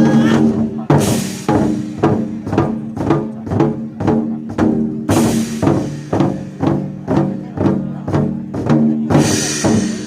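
Chinese war drums (zhan gu) beaten in a steady rhythm, about two to three strokes a second, over a backing track with held low tones. Crashes come about every four seconds.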